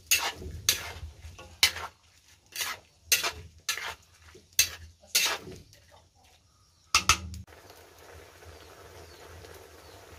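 Metal spatula scraping and clanking against a wok as chicken feet are stirred in a simmering sauce, about ten strokes at uneven intervals. The strokes stop about seven seconds in, and a faint steady hiss is left.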